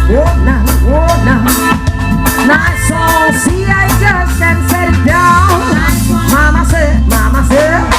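Live band music with drum kit, bass and a sung melody, in a ska/reggae-like groove.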